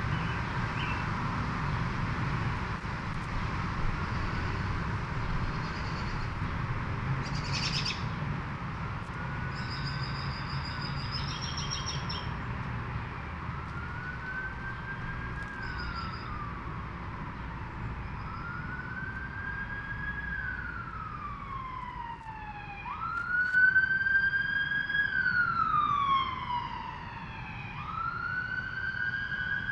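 An emergency-vehicle siren wailing in slow rising and falling sweeps, growing louder through the second half and loudest about three-quarters of the way in, over a low rumble. A few short bird chirps come near the middle.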